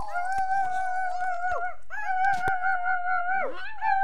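A small dog howling: three long, drawn-out, steady-pitched howls, each about a second and a half, with short breaks between.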